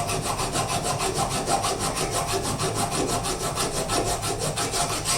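A hand file rasping against a metal screw held in the lathe collet, a steady scraping with an even, rapid pulse.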